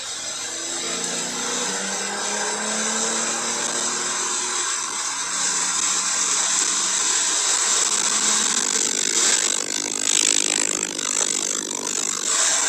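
Porsche 911 Carrera 4S (992) twin-turbo flat-six accelerating, its pitch rising, then an upshift about four and a half seconds in and the pitch climbing again. Heavy hiss of tyre spray and rain on a soaked track runs under it, with louder surges of hiss near the end.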